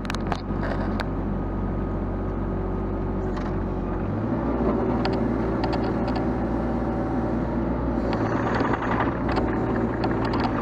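Sunward mini excavator's engine running under hydraulic load as the boom reaches out and the bucket is lowered to the ground. About four seconds in the engine note steps up and gets heavier, and light clicks and knocks follow.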